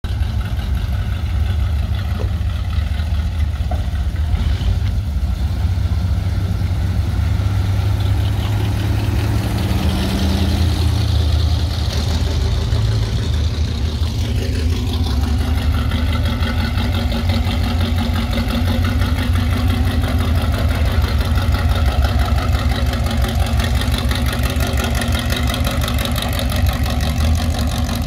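Engines of classic cars and pickup trucks rumbling at low speed as they pull away one after another. A rapid, even exhaust pulse runs throughout and grows stronger about halfway through.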